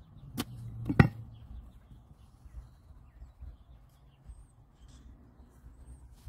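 Two sharp plastic clicks about half a second apart, the second louder, as the small reading lid of a blue plastic water meter box is snapped shut. Faint bird chirps follow.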